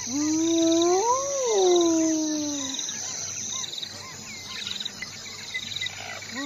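A long animal howl that swells and rises in pitch, then slowly falls away, with a second howl starting near the end, over a steady high trilling and scattered small chirps.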